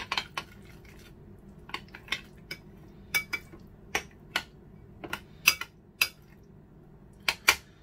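Metal fork clinking and scraping against a ceramic bowl while stirring tuna salad, about fifteen sharp irregular clinks.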